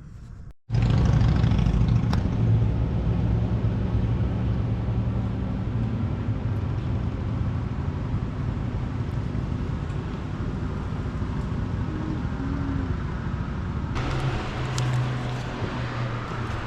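Car on the move: steady engine and road noise with a low hum, starting suddenly just under a second in. The sound changes and brightens about two seconds before the end.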